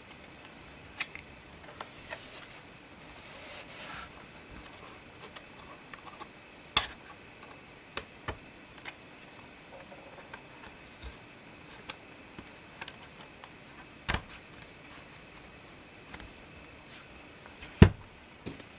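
Scattered light clicks and taps, one louder click near the end, with brief rustling near the start: small parts of a laptop being handled during disassembly.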